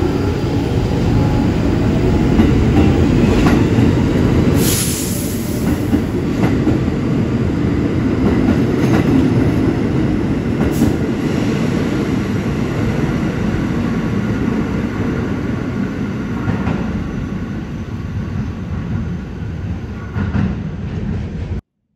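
R46 subway train running along the station platform, a loud steady rumble with wheel noise and a brief hiss about four and a half seconds in, fading as the train leaves. The sound cuts off suddenly just before the end.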